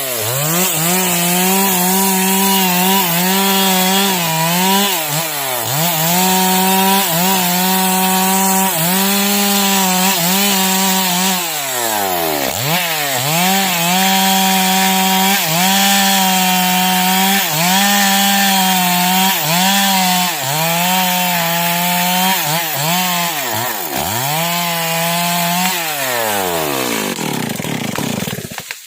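Stihl chainsaw cutting through a small tree, the engine held at high revs with its pitch sagging briefly every second or two as the chain bites. A few times it drops toward idle and revs back up, and near the end it winds down.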